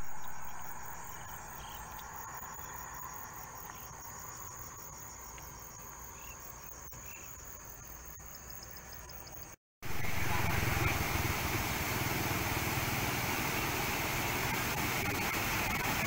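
Insects trill steadily and high-pitched over still floodwater. About ten seconds in, after a brief break, the sound changes to the louder, even rush of floodwater flowing across a road.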